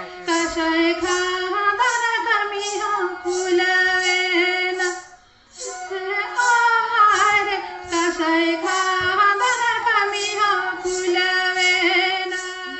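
A woman singing a song with long, held notes into a microphone, amplified over a hall PA, with a short break about five seconds in.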